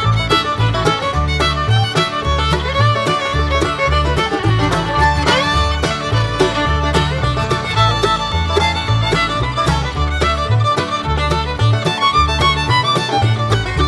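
Background music: an upbeat fiddle-led bluegrass-style instrumental with a steady bass beat.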